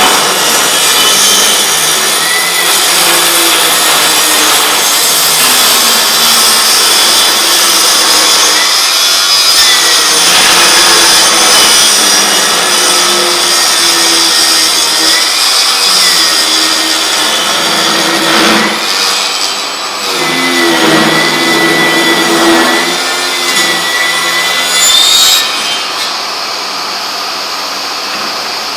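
Milwaukee M18 Fuel 8-1/4" cordless table saw with a brushless motor, its blade cutting wood under load, with brief dips in level. About 25 seconds in the cutting stops, and a steadier, quieter running noise carries on.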